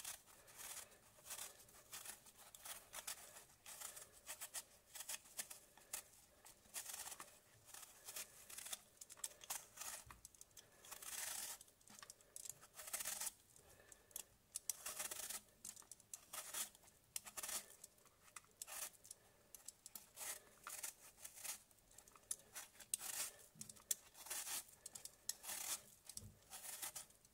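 Vegetable peeler shaving the skin off a whole apple: faint, short scraping rasps, one after another in an irregular rhythm as each strip of peel comes away.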